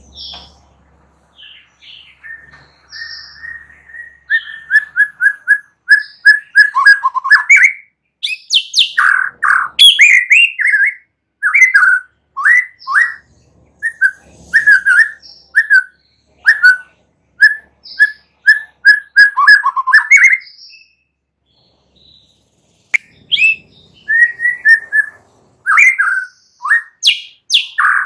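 White-rumped shama singing: a long run of short clear whistled notes, many repeated at the same pitch, broken by rising and falling phrases. The song stops for about two seconds near the end, then starts again.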